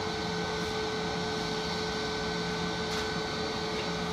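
Jet airliner's engines idling as it taxis slowly in to the gate: a steady whine over a broad hum.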